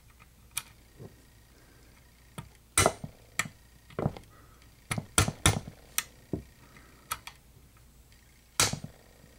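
A hammer tapping a bump key in a Master Lock padlock: about a dozen sharp, uneven taps and knocks, the hardest about three seconds in and near the end, as the lock is struck in an attempt to bump it open.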